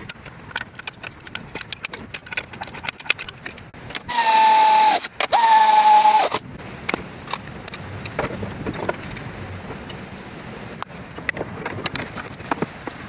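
Pneumatic air ratchet run in two bursts of about a second each, a loud whine that sags slightly in pitch, driving the strut's top nut. Before it, light clicks and knocks of metal suspension parts being handled.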